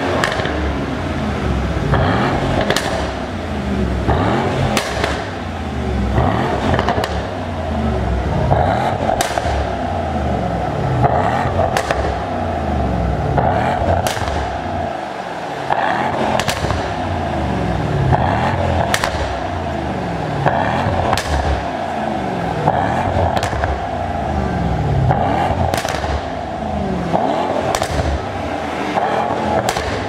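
Mercedes-AMG E63 S 4MATIC's twin-turbo 4.0-litre V8 revved over and over at standstill, about one rev every two seconds, each falling away with pops and crackles from the exhaust. The revs are heard inside an underground car park.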